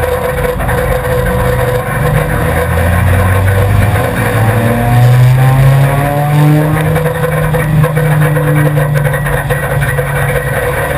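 Four-cylinder enduro race car's engine heard from inside the cabin, running under load among a pack of cars. About four seconds in the engine revs up and then holds a steady higher pitch.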